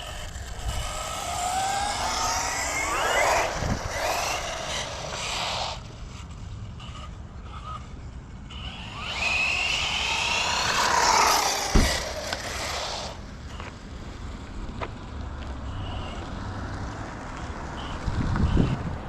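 Arrma Talion 6S EXB brushless RC car making two fast runs at half throttle on 6S power, its motor whine climbing and falling in pitch as it speeds up and slows down, with tyre noise. The first run fills about the first six seconds, the second runs from about nine to thirteen seconds in.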